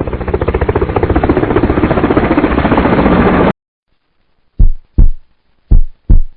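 A rapid, even, rattling pulse, like a jackhammer, runs for about three and a half seconds, getting slightly louder, and cuts off suddenly. After a second's pause a heartbeat sound effect begins, its lub-dub pairs of thumps coming about once a second.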